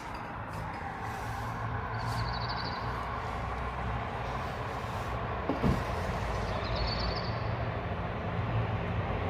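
City street traffic: a vehicle rumbling past, slowly building in level, with a bird's short high trill about two seconds in and again near seven seconds. A single short knock sounds about midway.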